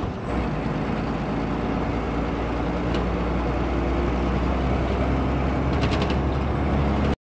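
Diesel bus engine running steadily, heard from inside the cabin as the bus drives over a rough unpaved road, with a low drone and body rattle. A quick run of sharp clicks or rattles comes a little before the end.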